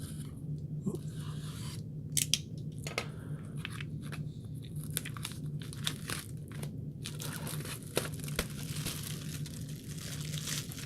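A sealed trading-card hobby box being unwrapped and opened: plastic wrap tearing and crinkling, with scattered sharp clicks and rustles of cardboard. A steady low hum runs underneath.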